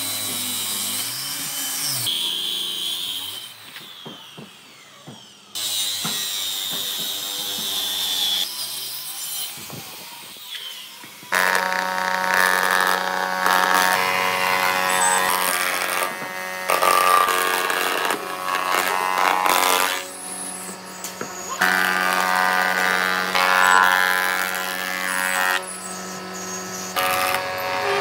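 Handheld electric circular saw cutting along a wooden plank, then a quieter stretch with a few knocks. From about eleven seconds in, an old combination planer-jointer runs with a steady hum and whine, its level shifting as a rough wooden slab is fed across the cutter head.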